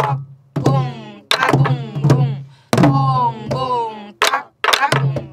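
Sori-buk, the Korean barrel drum used to accompany pansori, played in a jungmori rhythm. Sharp stick strikes on the wooden shell alternate with deep palm and stick strokes on the heads that ring on for most of a second, an uneven string of strokes.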